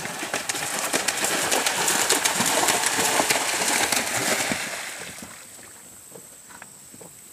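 A horse cantering through shallow water, its hooves splashing hard with a rapid run of strikes. The splashing fades out about five seconds in as the horse leaves the water, leaving only a few faint hoof falls on grass.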